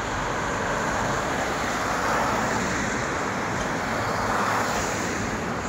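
Street traffic: cars driving past on a multi-lane city road, a steady rush of tyre and engine noise that swells twice as cars go by.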